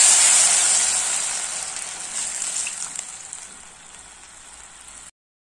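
Water poured into a hot kadai of grated raw papaya frying in oil, sizzling loudly at first and dying down steadily as the water takes up the heat. The sound stops suddenly near the end.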